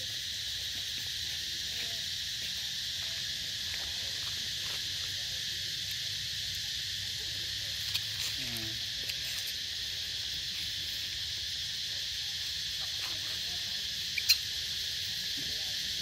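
Steady high-pitched insect chorus, a continuous shrill buzzing that holds level throughout, with a few faint short sounds over it, the clearest about 14 seconds in.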